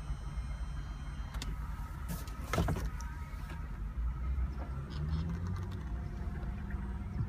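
Mercedes-Benz CLK320 cabriolet's electro-hydraulic soft top folding down: a steady motor hum with a few clicks and one louder clunk about two and a half seconds in as the roof frame moves.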